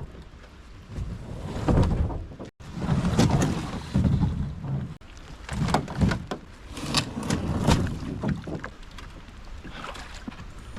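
Canoe on the water: irregular paddle splashes and knocks on the hull, with wind buffeting the microphone.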